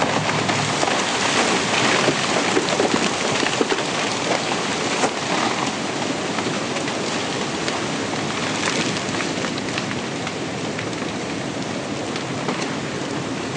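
Landslide of mud, rock and trees pouring down into a lake: a continuous rushing noise full of sharp cracks and snaps, easing off slightly toward the end.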